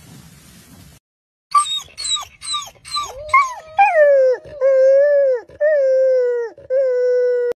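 Young spotted hyena calling: about a second and a half in, a quick run of short yelps, each falling in pitch, then four long drawn-out whining calls on a fairly steady pitch, each dipping at the end.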